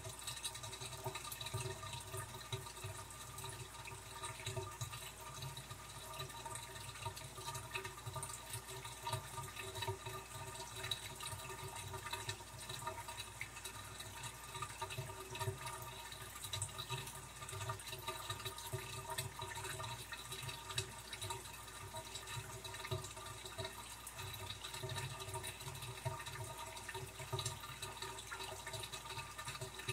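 Aquarium filter running: a steady trickle of moving water with a steady hum of several tones underneath.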